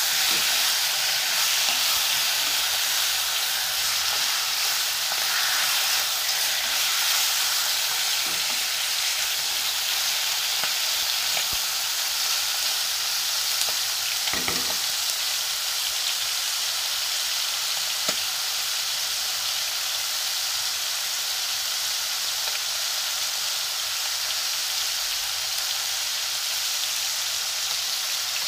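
Tomatoes and onions sizzling as they sauté in hot oil in a pan, a steady frying hiss while they are stirred with a wooden spatula. A couple of short knocks of the spatula against the pan about halfway through.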